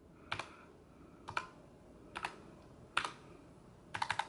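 Redragon K618 Horus low-profile mechanical keyboard being typed on slowly: single keystrokes about once a second, then a quick run of four keys near the end.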